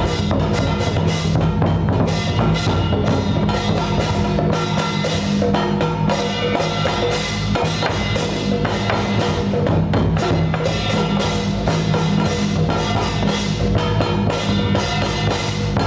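Music with dense, rapid percussion: wood block and drum strikes over steady low sustained tones, continuing without a break.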